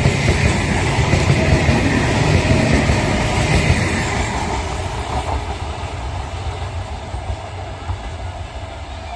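Electric local train (EMU) running past, its wheels rumbling on the rails. The sound is loud at first and fades steadily from about halfway through as the last coaches pull away.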